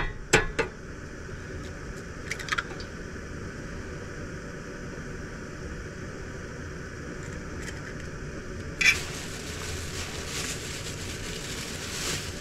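An egg tapped sharply against the rim of a small stainless steel bowl and cracked open, a few quick knocks, with a couple of faint clicks later. About nine seconds in, a steady hiss starts suddenly.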